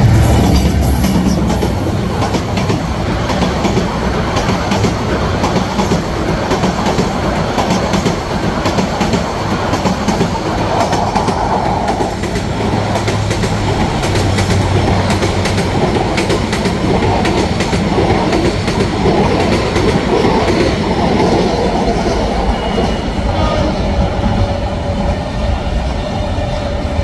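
Diesel-hauled passenger train passing close by. The locomotive's heavy engine rumble drops away about a second in, then a long rake of coaches rolls past with a steady rumble and the clickety-clack of wheels over rail joints. A faint thin whine comes in near the end.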